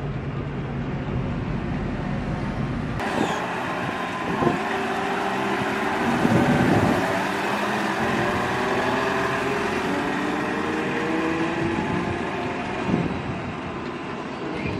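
Mecalac wheeled excavator's diesel engine running as it drives past on a brick street, its pitch sliding up and down, with a sharp knock a few seconds in. About three seconds in, a steady low hum stops abruptly and the machine sound takes over.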